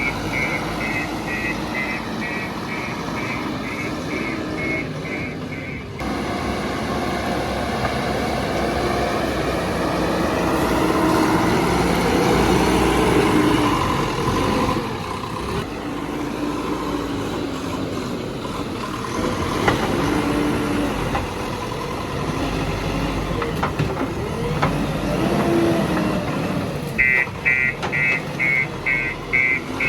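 JCB 3DX backhoe loader's diesel engine running under work, its pitch rising and falling as it revs. A reversing alarm beeps about twice a second for the first six seconds and again near the end.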